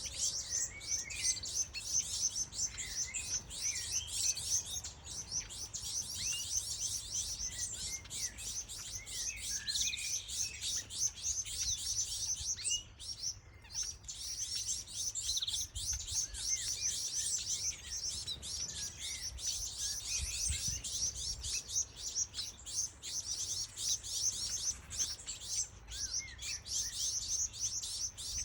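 Gouldian finch chicks begging while being fed by a red-headed finch: a rapid, continuous run of high-pitched calls that breaks off briefly about halfway, with scattered lower chirps mixed in.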